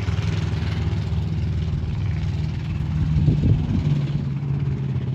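Car engine running on off-road diesel fuel in place of engine oil, steady with a brief rise in pitch about three seconds in. After 37 laps the engine is getting tight and close to seizing.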